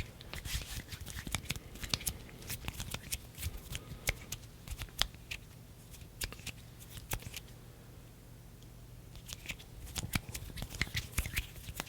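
ASMR hand sounds: fingers fluttering, brushing and rubbing close to a microphone, making quick crisp crackly clicks. The clicks come in dense flurries, thin out for a few seconds in the middle, and pick up again near the end.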